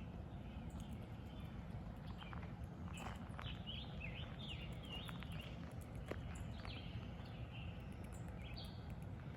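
Several songbirds chirping and calling in short, repeated phrases over a steady low background rumble.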